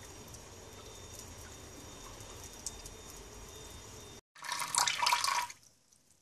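Low steady background with a few faint ticks, then about four seconds in a loud burst of water running and splashing for just over a second, as a small 12 V submersible pump pushes water up a thin tube into a toilet cistern.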